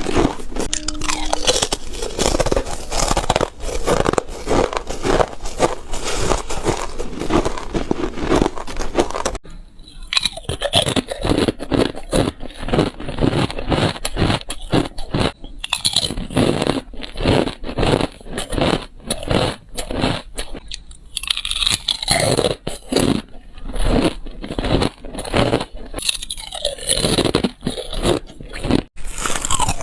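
Crunchy chip ice bitten between teeth, one sharp crunching bite after another in quick succession. There is a brief dip about nine seconds in, then the biting carries on.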